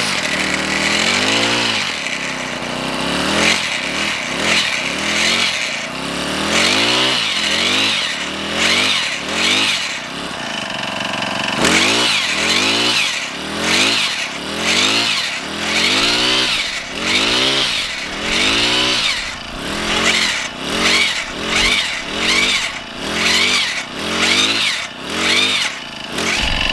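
Gas-powered four-stroke earth auger engine running under load, revving up and down over and over as the bit bores into rocky ground, the surges coming about once a second in the second half.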